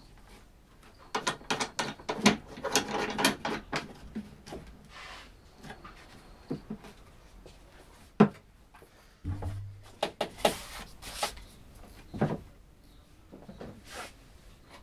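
Irregular mechanical clicking and rattling, with a cluster of quick clicks in the first few seconds. Scattered knocks follow, including a sharp one about eight seconds in and a short low thump soon after.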